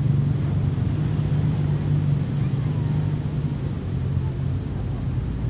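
Steady low rumble of outdoor beach ambience at the water's edge, even throughout with no distinct events.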